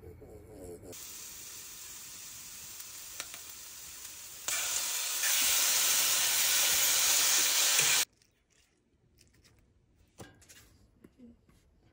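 Food sizzling in a skillet on a camper's gas stove while it is stirred with a fork; the sizzle grows much louder about halfway through and cuts off suddenly, leaving only a few faint taps.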